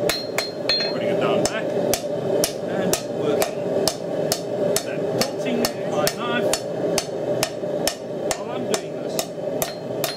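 Hand hammer striking a hot steel knife blade on an anvil in a steady rhythm, about two to three blows a second, with a steady hum underneath.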